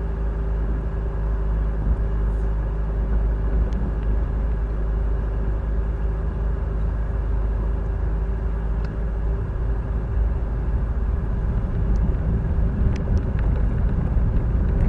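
Off-road vehicle's engine running steadily at low speed, with a deep continuous rumble and a steady hum. A few light clicks and knocks come through now and then.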